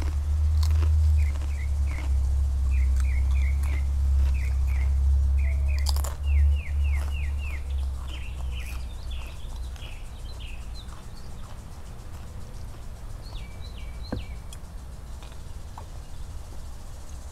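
Small birds chirping in quick runs of short, repeated calls. A low steady rumble underneath is the loudest sound and fades after about eight seconds. A few sharp clicks are scattered through.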